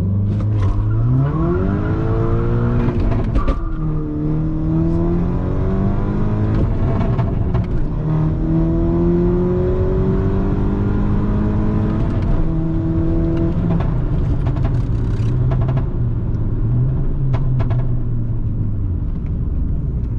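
Stage 2 tuned Mk6 Golf GTI's turbocharged four-cylinder accelerating hard with traction control off. The revs climb fast in first, drop at a gear change about three and a half seconds in, and climb more slowly through second. Around twelve seconds in they fall again on a fumbled shift into third, then run lower and unevenly.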